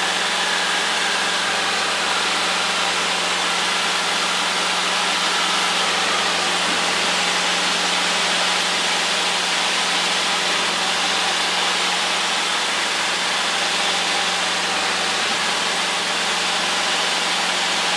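Light aircraft's piston engine and propeller droning steadily at climb power, heard from inside the cockpit, with a loud, even hiss of air and cabin noise over it.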